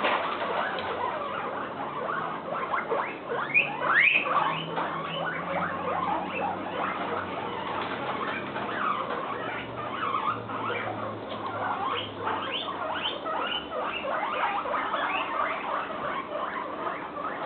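Guinea pig screaming: a rapid, continuous run of short, high squeals that rise and fall in pitch. It is loudest about four seconds in.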